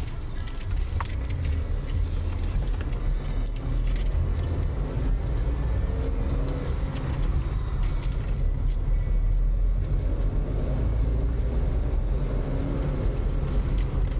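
Suzuki S-Presso's small three-cylinder engine and road noise inside the cabin as the car speeds up from walking pace, a steady low rumble that grows a little louder over the first few seconds.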